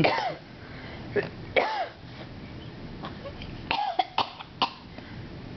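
A woman coughing deliberately, several short coughs with pauses between them: one at the start, a couple about a second and a half in, and a quicker run of three or four near the end.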